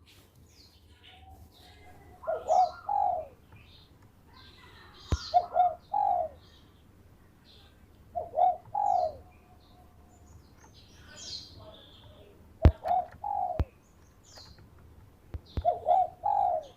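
Zebra dove (perkutut) cooing: five short phrases of two or three rolling notes, about one every three seconds. Faint high chirps from other small birds and a few sharp clicks come in between.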